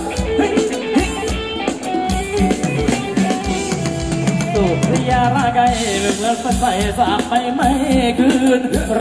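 Live Thai ramwong dance music from a band: a singer over a steady drum-kit beat and other instruments.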